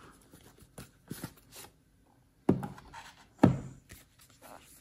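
Watch packaging being handled: a cardboard box and paper instruction booklets, with a few light scrapes and rustles, then two sharper knocks about two and a half and three and a half seconds in.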